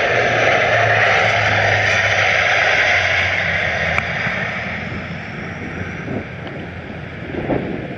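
Bombardier DHC8-Q400 turboprop flying past, its propellers giving a steady low drone under loud engine noise that fades away over the second half.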